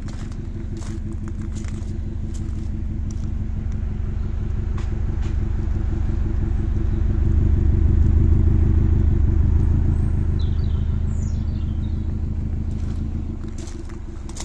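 Subaru Legacy 2.0 twin-turbo's flat-four engine idling steadily, a low pulsing rumble from the exhaust. It grows louder toward the middle, close to the tailpipe, then fades again.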